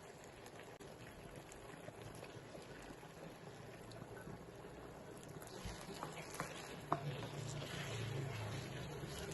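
Gravy bubbling in a cooking pan, with a few light knocks about six to seven seconds in.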